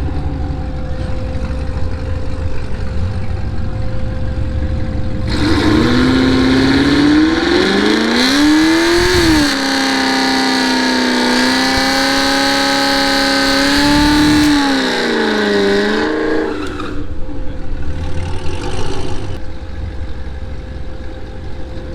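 Supercharged V8 of a 2018 Chevrolet Camaro ZL1 making a full quarter-mile drag-strip pass at wide-open throttle. About five seconds in, the engine note comes up loud and climbs in pitch, dips at a shift, and holds steady for a few seconds. It then rises and falls once more and fades away after about eleven seconds.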